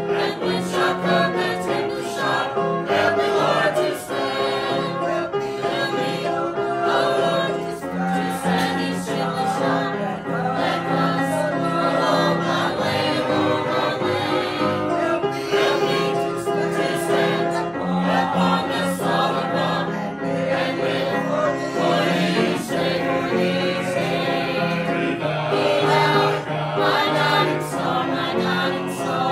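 A church choir singing a gospel hymn, with sustained notes that change every second or so.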